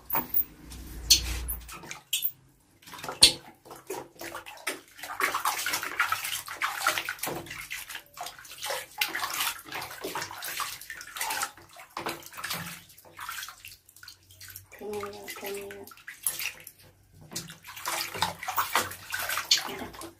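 Water splashing and sloshing in a plastic washbasin as hands wash a baby monkey, with irregular splashes and drips.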